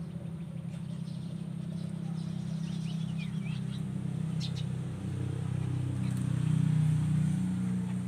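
A motor running with a steady low hum that grows louder about six seconds in, with a few short bird chirps around three to four seconds in.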